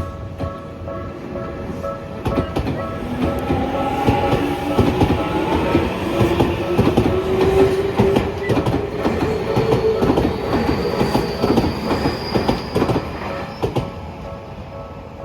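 Tokyu Oimachi Line electric train passing over a level crossing, its wheels clacking over the rail joints and crossing. Its motor whine rises steadily in pitch as the train gathers speed. The crossing bell keeps ringing its steady tones throughout, and the train fades near the end.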